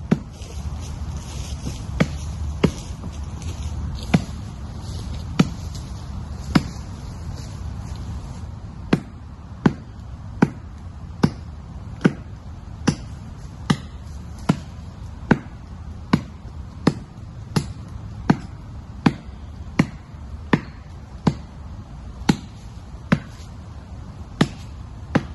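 Axe blows chopping into the trunk of a dead tree, a sharp knock with each strike. The strikes come slowly and unevenly for the first several seconds, then settle into a steady rhythm of a little over one strike a second.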